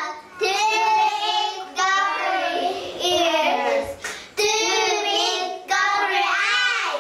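Young children singing together in short phrases of about a second each, with brief pauses between them.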